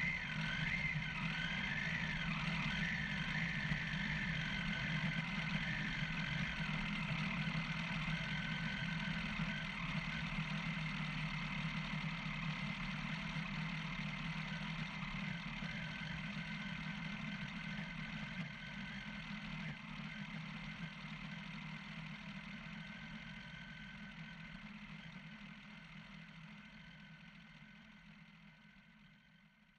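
Motorcycle engine running steadily as the bike rides over a rough dirt track, the sound fading away gradually over the last several seconds.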